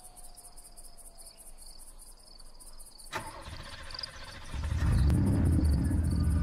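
Intro of a music track: a faint, even ticking rhythm, then a sudden hit about three seconds in. A loud, deep bass comes in about a second and a half later and holds.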